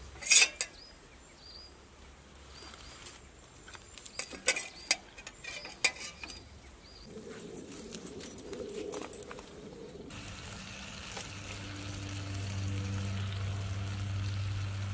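Light clinks and taps of metal utensils on steel camp plates, with a few bird chirps; from about ten seconds in, a steady sizzle from a cast-iron Dutch oven of chicken stew cooking over the fire.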